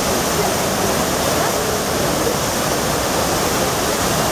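Trevi Fountain's cascades: water pouring over the rock basin into the pool, a steady rush of falling water.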